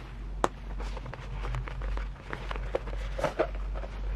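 Hands handling and unfolding Louis Vuitton Kirigami coated-canvas pouches: a sharp tap about half a second in, then a run of soft clicks and rustles, over a low steady hum.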